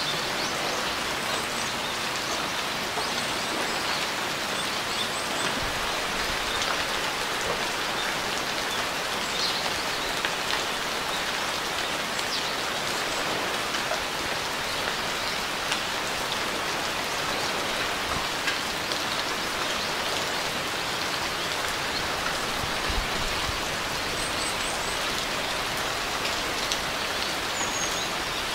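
Steady rain falling, an even hiss of raindrops with no let-up, with a few faint high chirps now and then.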